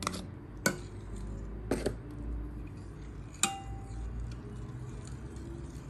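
A metal spoon clinking against a ceramic bowl and a measuring cup as yogurt is scraped out and stirred into milk: about four sharp clinks, the last with a short ringing note.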